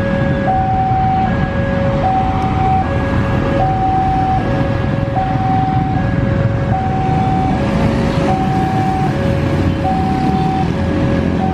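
Electronic warning alarm of a railway level crossing, sounding a repeating two-tone high-low chime about once every second and a half, while the barrier is down for an approaching train. Motorcycle and car traffic runs under it.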